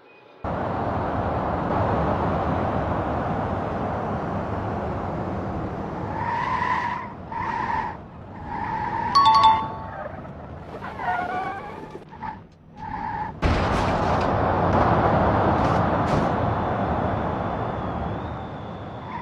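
Truck running hard with tyre noise, broken in the middle by several short squealing tones, then running hard again.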